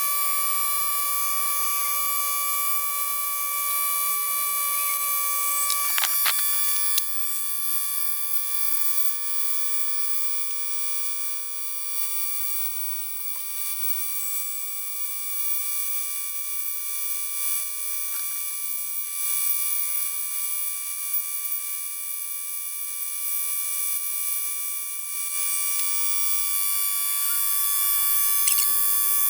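Air-powered pencil die grinder (Neiko 10649A) running at high speed with a carbide burr, grinding wood: a steady high-pitched whine over air hiss that starts abruptly and cuts off near the end.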